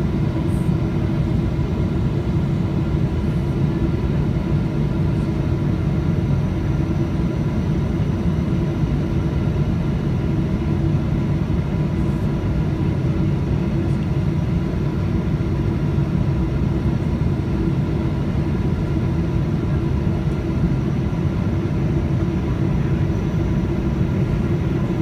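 Cabin noise of a Boeing 777-300ER in flight, heard from a window seat beside the wing. Its GE90 engines and the airflow make a steady, unchanging drone with several constant hums in it.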